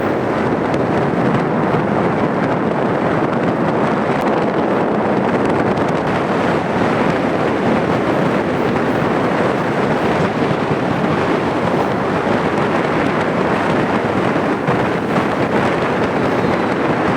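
Steady rush of wind on the microphone over the running noise of a moving MEMU electric train.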